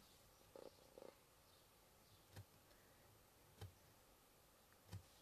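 Near silence broken by three faint, soft taps about a second and a quarter apart: a craft stamp being tapped down while inking and stamping.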